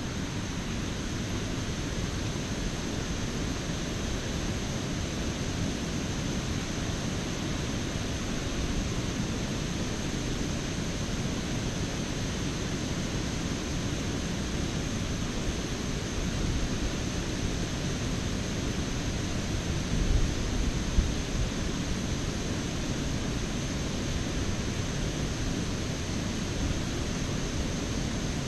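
Steady rushing wind noise on the microphone, with a couple of low buffeting gusts about twenty seconds in.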